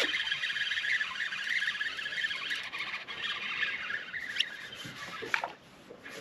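Fishing reel being cranked to bring in a hooked crappie: a steady whirring of the reel's gears that stops about five and a half seconds in. Two sharp clicks come near the end.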